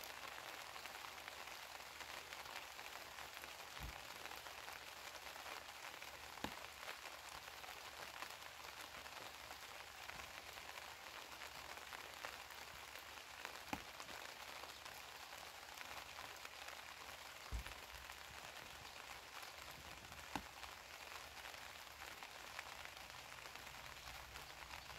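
Light, steady rain, with a few louder single drops landing now and then.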